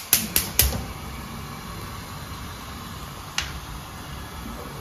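Gas stove's spark igniter ticking rapidly, three clicks in the first half second as the burner knob is turned, then a steady low hiss with one sharp click about three and a half seconds in.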